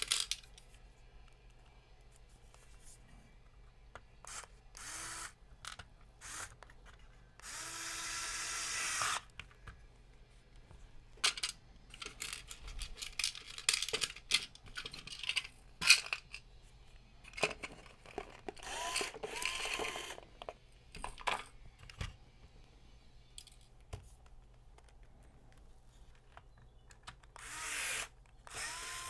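Power screwdriver driving screws back in: several short runs of its motor, the longest about a second and a half, each whining up at the start and down at the stop, with sharp clicks and knocks of handling in between.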